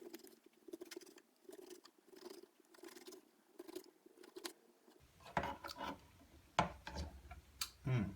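Kitchen utensils clicking and tapping on a cutting board and plate while the food is served out, with louder knocks and clatter in the second half.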